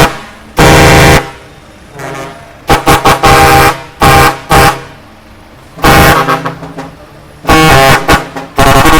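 Truck air horns blasting in loud bursts of differing length, several horns sounding together as a chord, with short gaps between them. A sustained blast starts near the end.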